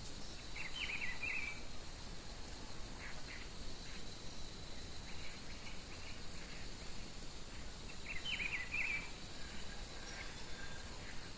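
Wild birdsong: the same short, quick phrase is sung twice, near the start and about eight seconds in, with fainter chirps between, over a steady high-pitched insect drone.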